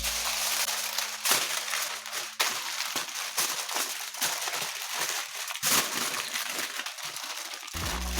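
Aluminium foil being crumpled and crinkled by hand as it is wrapped around a chicken: a run of irregular crackling rustles, some louder than others.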